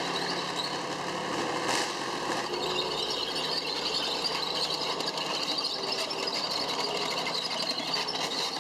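Helicopter flying over, a steady engine whine with rotor and turbine noise.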